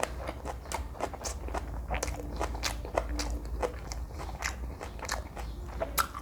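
Close-miked chewing of jjajangmyeon noodles with green onion kimchi: irregular crisp crunches and wet mouth clicks over a low steady hum.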